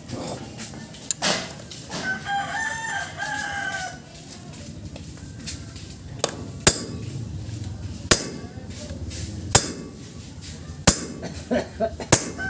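A rooster crowing once, about two seconds in. In the second half there are four sharp taps, about a second and a half apart.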